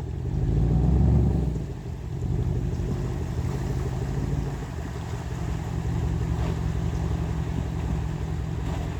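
An off-road vehicle's engine running, swelling louder about a second in as it picks up, then settling into a steady drone.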